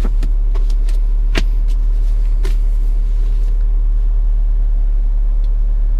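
Mazda B2000's 2.0-litre four-cylinder engine idling steadily, a low even hum heard from inside the cab. A few brief paper taps and rustles sound in the first few seconds as a brochure and repair manual are handled.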